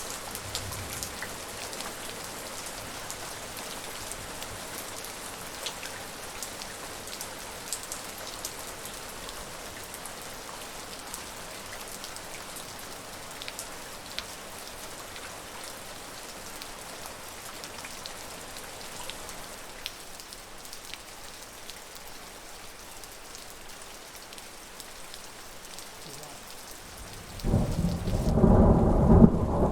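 Steady rain falling, an even hiss with scattered drop ticks. Near the end, a loud rumble of thunder starts suddenly and becomes the loudest sound.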